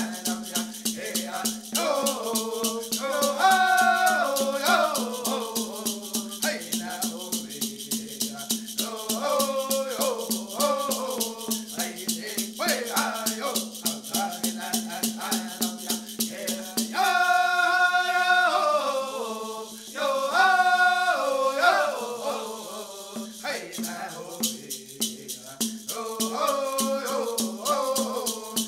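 Women's Dance song: voices singing over a rattle shaken in a steady beat. Past the middle the rattle thins out for a few seconds while the singing carries on, then the beat resumes.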